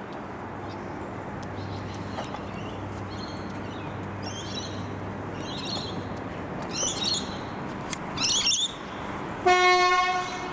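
Birds chirping against a steady low hum, then near the end a single train horn blast about a second long, one steady pitch.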